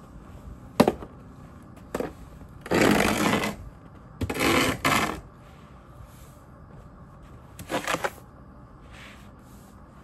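Snow shovel scooping and scraping snow off icy pavement, with a sharp knock of the blade about a second in, two longer scrapes around three and four-and-a-half seconds, and a shorter one near the eight-second mark.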